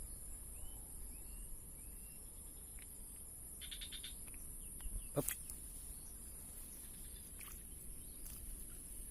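Outdoor ambience dominated by a steady, high-pitched insect drone, with a few short rising bird chirps in the first couple of seconds.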